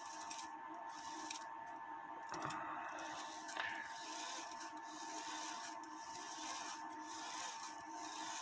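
Faint rubbing and scraping of hands working a cuckoo clock movement, over a steady faint whine.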